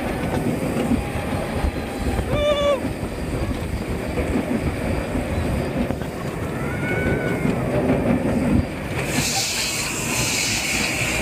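Rumble and wind buffeting of a swinging, rotating amusement-park ride heard from the rider's seat. A brief high pitched cry about two seconds in and another arching one around seven seconds ride over it, and a steady hiss comes in near the end as the ride swings back to its loading platform.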